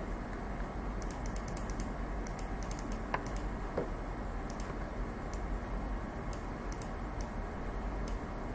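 Scattered light clicks and taps from a stylus on a pen tablet as a number is erased and rewritten by hand, over a steady low hum.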